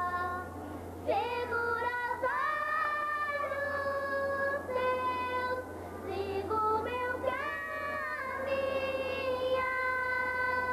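Two young girls singing a Marian hymn together in long held notes, with two short breaks between phrases. A steady low hum runs underneath.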